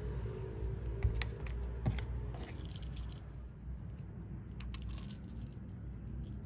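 Light clicks and rattles of hard plastic syrup-pump parts being handled and fitted together. A cluster of clicks comes in the first few seconds and another about five seconds in, over a low steady hum.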